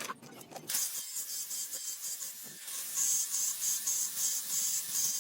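Spray hissing steadily while the motorcycle engine is cleaned, turning into an even pulsing about three times a second from about three seconds in.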